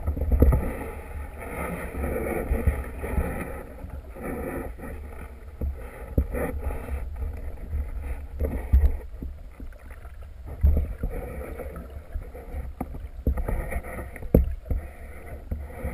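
Muffled water sloshing around a submerged camera housing, with a heavy low rumble and scattered sharp knocks.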